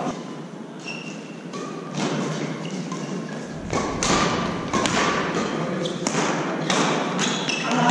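Doubles badminton rally: repeated sharp racket strikes on the shuttlecock mixed with players' feet thudding on the court, and short squeaks of rubber soles on the court mat.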